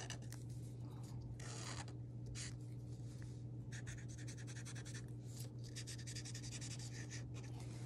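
Mr. Sketch chisel-tip felt marker scratching across paper in short, irregular strokes while colouring in shapes, over a steady low hum.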